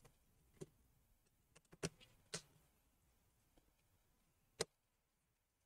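Scattered small clicks and taps of a Phillips screwdriver and screws as screws are taken out of a laptop, about eight in all, the loudest near the end, with near silence between them.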